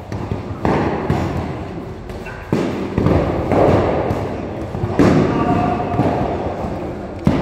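Padded practice swords striking padded shields and each other in sparring: irregular thumps and smacks, the loudest about five seconds in, echoing in a large stone hall.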